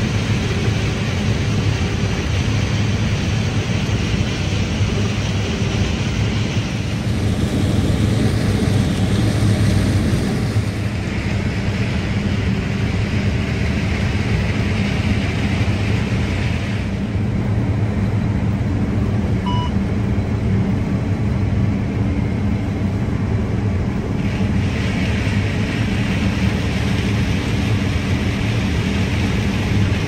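Heavy harvest machinery running steadily: a deep engine hum under a broad rushing hiss. The hiss drops away for several seconds past the middle and then comes back.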